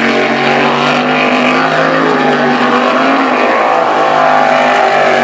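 V8 jet sprint boat's engine running hard at high revs, its pitch wavering a little as it takes the bends, over the steady rush of its jet spray.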